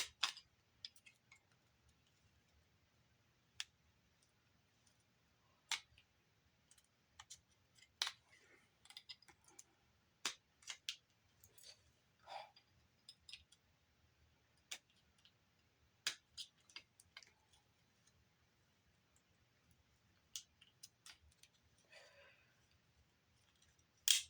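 Scattered sharp clicks and short scrapes at irregular intervals from hand tools and small plastic and metal parts of a Blu-ray player being worked apart, with the loudest click near the end.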